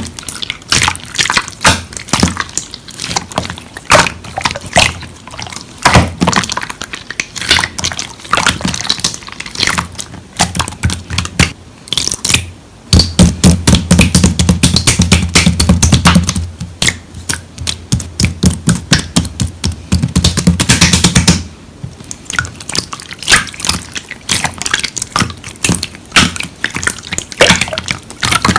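Slime squished and poked by hand: a dense run of wet clicks and pops with short pauses. A low hum sits under the clicking for several seconds in the middle.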